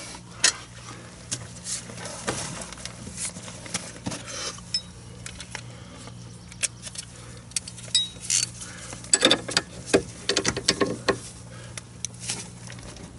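Scattered metallic clinks and taps of hand tools and hardware at a golf cart's leaf spring hanger, busiest about nine to eleven seconds in, over a faint steady low hum.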